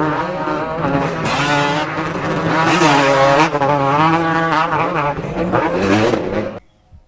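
Motocross dirt bike engine revving, its pitch rising and falling repeatedly, cutting off suddenly near the end.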